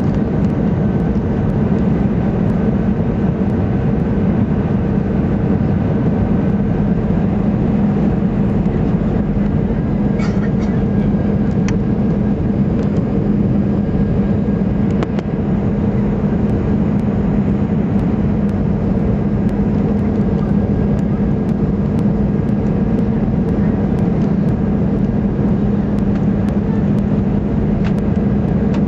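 Steady cabin drone of a Boeing 747 in flight on final approach: engine hum and rushing airflow, with a constant low hum.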